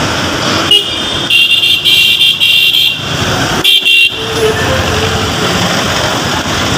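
Dense road traffic with engines running, cut through by a loud, high-pitched vehicle horn. The horn gives a short toot about a second in, a long blast of nearly two seconds, then another short toot.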